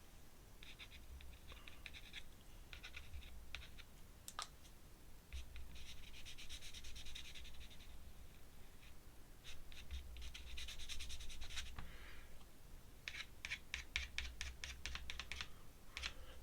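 Paintbrush scratching over paper in spells of quick short strokes, dabbing in grass with green paint, with short pauses between the spells.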